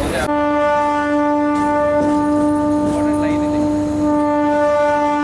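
Train horn sounding one long, steady blast that starts abruptly just after the beginning and is held without a break.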